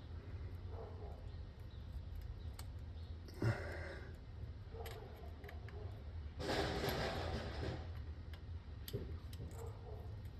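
Light scattered clicks of hand tools and parts being handled during work under a car, with one sharp knock about three and a half seconds in and a rustling, scraping noise for about a second past the middle, over a steady low hum.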